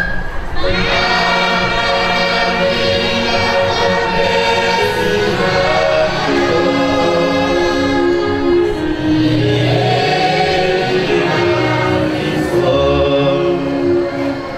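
Church choir singing a hymn in harmony, full voices coming in about half a second in.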